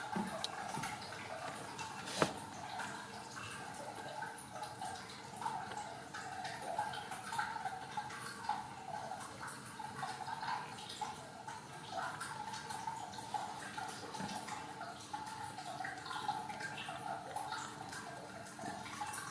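Newborn Ragdoll kittens suckling at their mother, a continuous wet clicking and smacking. One sharper click about two seconds in.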